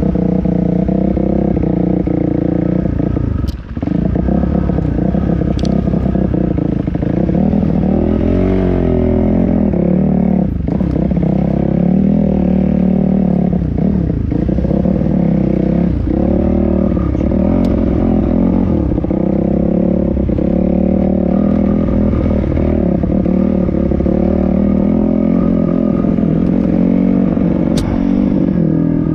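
Dirt bike engine running under constantly changing throttle, revs rising and falling every second or two, heard close from the bike itself. Rattling and clatter from the bike over rough ground, with a few sharp clicks, and the engine briefly drops off about three and a half seconds in.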